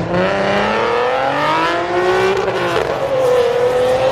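Car engine accelerating hard: its pitch climbs steadily for about two and a half seconds, drops at a gear change, then climbs again more slowly.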